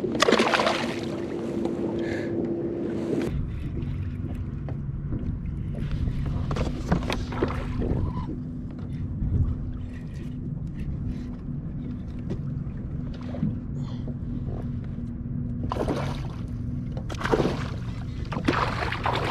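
Water sloshing and lapping against a kayak hull, with wind and scattered knocks and splashes, busier near the end.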